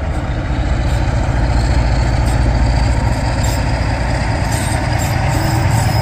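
Class 47 diesel locomotive's Sulzer engine running with a steady, heavy low rumble as the locomotive pulls its coaches slowly past.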